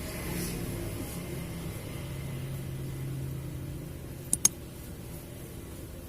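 Steady low room hum, then a quick double click about four seconds in.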